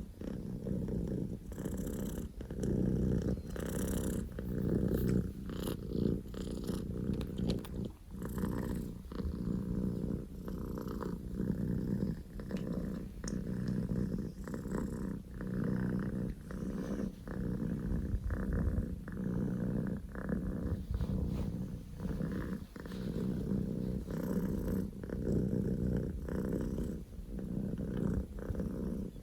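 Scottish Fold kitten purring loudly and without a break, the purr swelling and dipping about once a second with each breath in and out.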